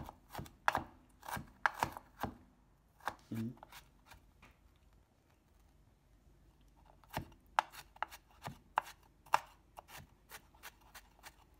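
Kitchen knife cutting ginger into small pieces, the blade tapping the cutting board in irregular strokes. The cutting pauses for about three seconds midway, then resumes.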